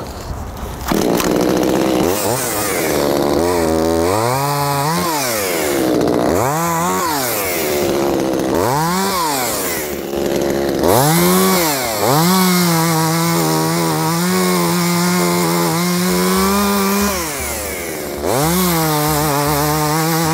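Echo CS-2511TES top-handle chainsaw's small two-stroke engine, revved up and down about four times, then held at high revs for several seconds, with a brief drop and a rev back up near the end.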